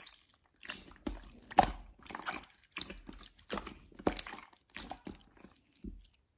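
A series of crisp, irregular crunches and crackles, about two a second, stopping near the end.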